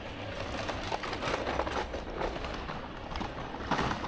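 Irregular series of sharp clacks and knocks, the loudest near the end.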